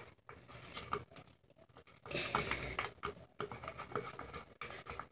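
Wooden popsicle stick stirring slime and shaving cream in a small metal bowl: faint, irregular scraping and squishing, sparse at first and busier from about two seconds in.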